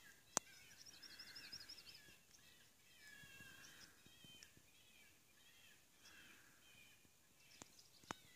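Faint songs and chirps of several small birds, including a quick trill early on. A single sharp click about half a second in is the loudest sound, and two fainter clicks come near the end.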